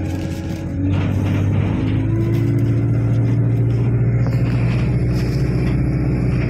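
A bus engine and drivetrain droning, heard from inside the passenger cabin while the bus is under way. It is a steady low hum with a higher whine that shifts a little in pitch in the first couple of seconds, then holds.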